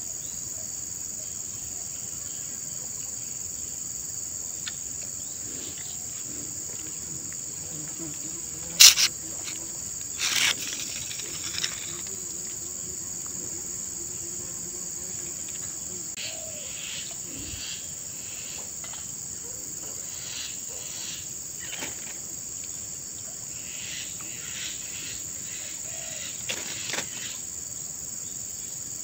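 Steady high-pitched chirring of insects, with two sharp knocks about nine and ten seconds in and a few softer clicks and rustles later on.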